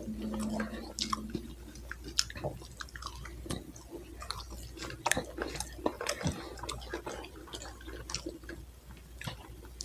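A man chewing crinkle-cut french fries with his mouth, with irregular small wet clicks and smacks.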